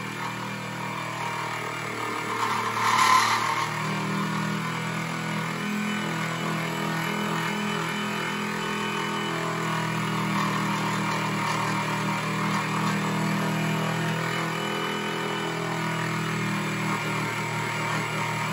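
Benchtop milling machine spindle running steadily, a 6 mm end mill cutting brass as the rotary table is cranked by hand to enlarge a hole. A brief louder cutting burst comes about three seconds in.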